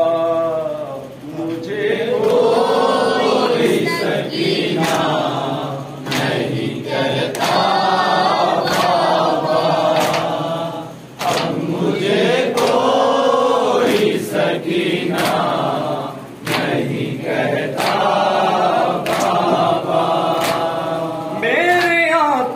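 Male voices chanting a Shia noha lament unaccompanied, in slow rising and falling phrases with short pauses between lines. Sharp slaps in a steady rhythm, about twice a second, run under the chant, typical of matam chest-beating.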